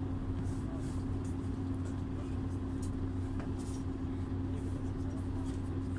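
Volvo Carrus city bus heard from inside the cabin: a steady engine and drivetrain drone with a low hum that holds one pitch, and a few faint light ticks and rattles.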